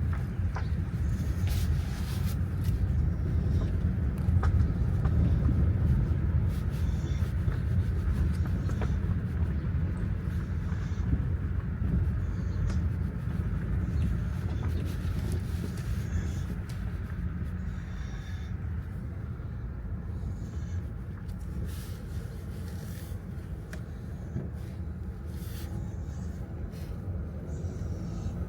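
Steady low rumble of a vehicle driving, with scattered light clicks and knocks over it; it eases off a little about two-thirds of the way through.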